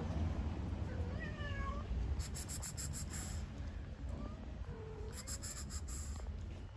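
A cat meowing twice, once about a second in and again, lower, near five seconds, over a steady low rumble. Two short bursts of rapid high-pitched ticking come in between.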